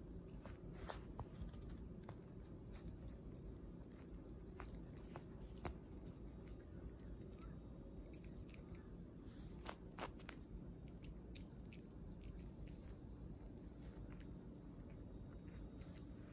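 A dog chewing: faint, irregular crunching clicks.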